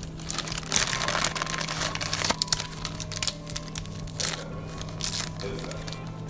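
A thin plastic bag crinkling and rustling as dried bay leaves are taken out of it, in a quick irregular run of crackles that dies down near the end.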